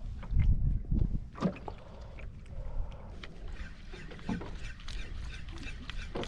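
Water lapping and sloshing against the hull of a small boat adrift at sea, with heavy low rumbles of wind buffeting the microphone about half a second to a second in.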